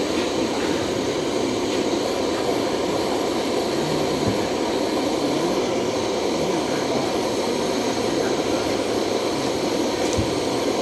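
Steady rushing of water, an even, unbroken noise at a constant level.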